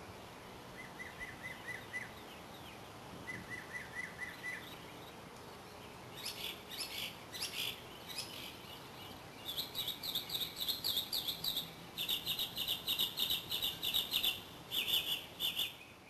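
Songbirds calling: two short runs of quick notes, then, from about six seconds in, louder and higher rapid trills repeated several times.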